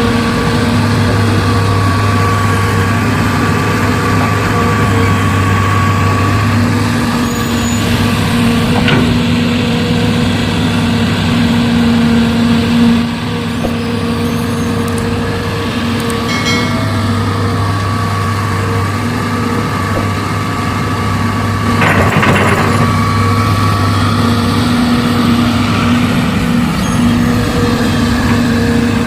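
Heavy diesel engines of an excavator and trucks running steadily, with a brief noisy burst about 22 seconds in.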